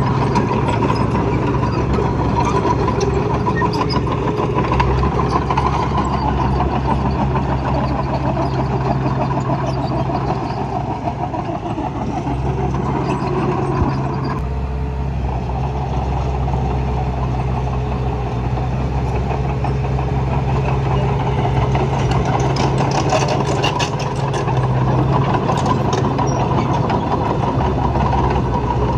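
Diesel engine of heavy earthmoving machinery running steadily, with a low hum that eases for a moment about halfway through. Near the end come a few seconds of metallic rattling and clanking.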